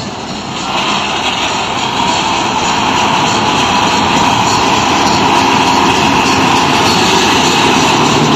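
KS Combine harvester running at work, its engine and threshing machinery making a steady drone with a high whine. It grows louder about a second in as the machine comes up close.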